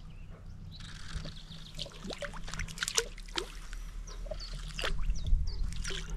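Spinning reel on a feeder rod being wound in, with scattered small clicks and light water trickle as the rig comes to the surface. There is a louder low thump about five seconds in, and birds chirp in the background.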